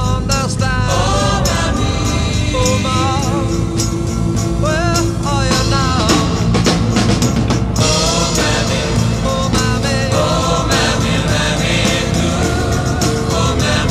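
Background music: a song with singing voices over a band with drums.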